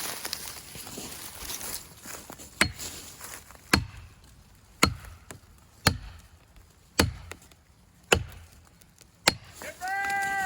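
Seven evenly spaced blows, about one a second, driving a felling wedge into the back cut of a tree. A short pitched sound follows just before the end.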